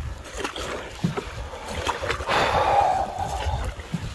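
Canoe paddle strokes pulling through calm lake water, with a longer swishing stroke about two seconds in, over a low rumble.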